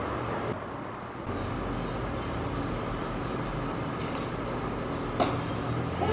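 A steady low rumble, with one sharp smack about five seconds in.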